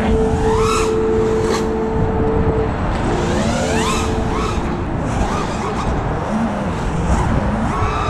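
A 5-inch FPV freestyle quadcopter's brushless motors and propellers (T-Motor Velox 2207 1750kv on 6S with HQProp Ethix S4 props) whining in flight. The steady whine swoops up and down in pitch several times as the throttle is punched and eased, over a constant low rush of wind.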